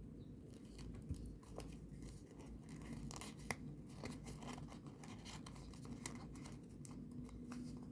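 Faint rustling and small crisp ticks of folded origami paper units being handled and slotted together, with a sharper tick about a second in and another about three and a half seconds in.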